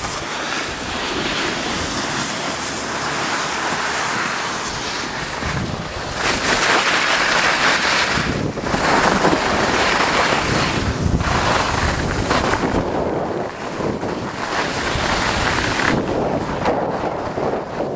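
Wind buffeting the microphone and skis hissing and scraping over packed snow during a downhill ski run. The rushing gets louder about six seconds in, with brief lulls.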